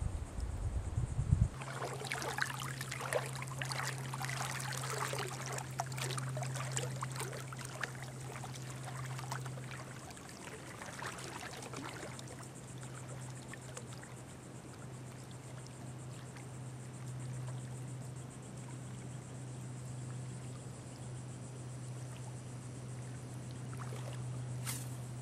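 Water splashing and trickling in an irregular run of small splashes for about ten seconds, then dying away. Under it run a steady low hum and a steady high drone of insects.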